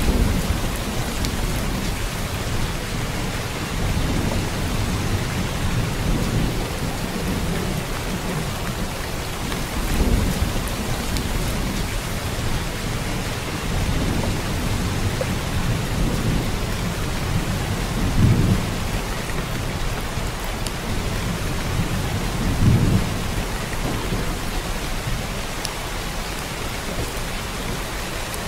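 Steady rain with low rolls of thunder swelling up about four times.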